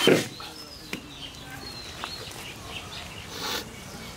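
Small birds chirping in the background, with a brief scrape about three and a half seconds in as a long-handled steel ladle scoops cooked noodles from a steel tray onto a steel platter. A short knock right at the start is the loudest sound.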